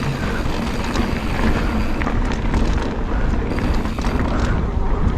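Wind rushing over the GoPro microphone and knobby tyres rolling over a dirt trail as a Pivot Switchblade 29er mountain bike is ridden downhill, with a few light rattling clicks from the bike.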